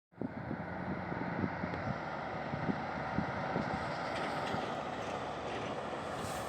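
Heavy diesel machinery running steadily, with irregular low knocks during the first few seconds and a brief hiss near the end.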